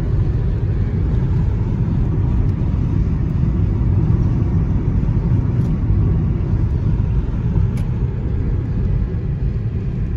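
Steady low rumble of a car driving along a road: road and engine noise with no change through the stretch.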